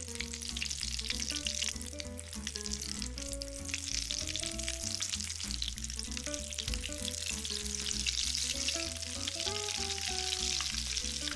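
Food frying in hot oil in a pan, with a steady sizzle.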